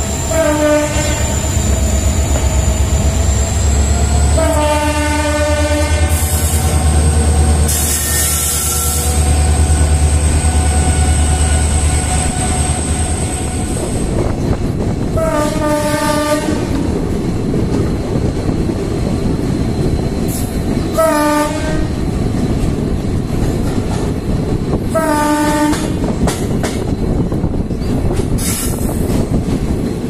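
EMD WDP4D diesel-electric locomotive sounding its horn five times, some blasts short and one about a second and a half long, heard from a coach of the train it is hauling. A low steady engine hum runs under the first half, then the wheels rumble and clatter on the rails.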